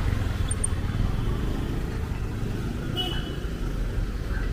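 City street traffic: a steady low rumble of motor vehicles, with a brief high-pitched tone about three seconds in.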